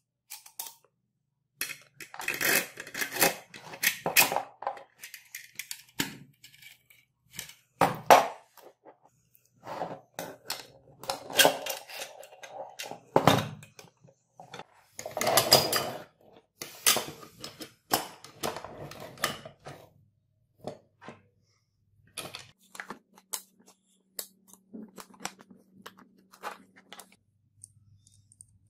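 Steel parts of a handmade airgun being handled and fitted together: the spring and rod slid into the metal tube, with clinks, knocks and scraping of metal on metal in irregular clusters, sparser near the end.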